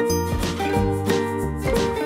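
Cheerful background music with a bass line and a steady beat.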